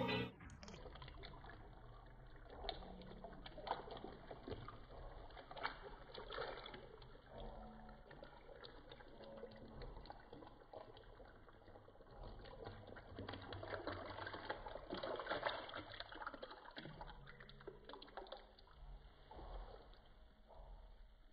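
Water poured from a glass jar into a bathtub, trickling and splashing into the bathwater, with water sloshing in the tub as the bather moves.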